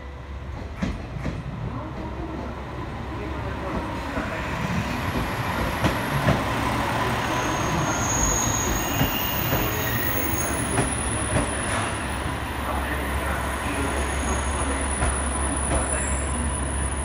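Two-car KiHa 47 diesel railcar train pulling into the platform, its engine and wheel noise growing louder from about four seconds in as it runs close past. Thin high squealing and scattered clicks ride over the rumble.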